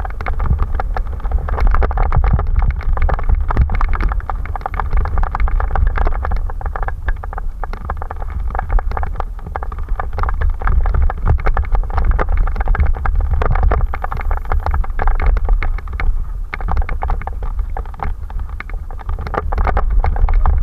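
Mountain bike riding fast down a rough dirt trail: tyres on dirt and a dense, irregular rattle and clatter of the bike over bumps, with heavy wind rumble on the microphone.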